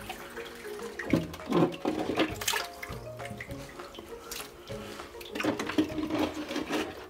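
Water pouring from a clear hose and splashing over live rock in a half-drained reef aquarium. There are louder splashy spells about a second in and again near the end, over background music.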